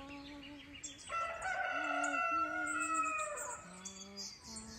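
A rooster crowing once, one long call of about two and a half seconds that starts about a second in and falls in pitch at the end.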